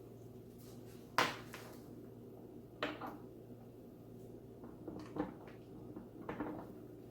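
Handling sounds of small hard objects, turntable parts and a power plug being set out and fitted: a few separate sharp clicks and knocks, the loudest about a second in, over a steady low hum.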